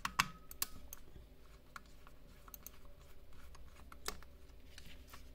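Small screwdriver working a screw out of the plastic underside of a computer mouse, with the mouse handled in the hand: light scattered clicks and ticks of metal on screw and plastic, a few sharper clicks near the start and another about four seconds in.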